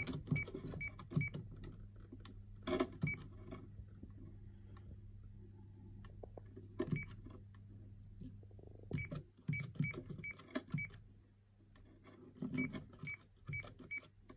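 HKC alarm keypad giving a short high beep at each key press while the manufacturer's passcode is keyed in. About fourteen beeps come in small groups with pauses between, each with a light tap of the key, over a faint steady low hum.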